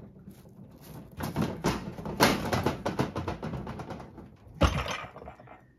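A cat clambering over a cluttered shelf of pots and boxes: a run of quick clattering knocks, then one loud thump about four and a half seconds in as it jumps down onto a wooden cabinet.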